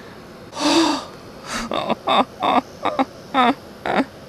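A man's voice: a breathy sigh or exhale a little over half a second in, then a string of short wordless vocal sounds, about three or four a second.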